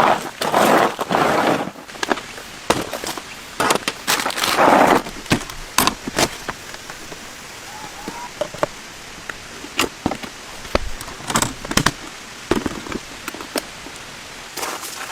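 Steady rain with many scattered taps and knocks, and two louder swells of rustling noise in the first five seconds.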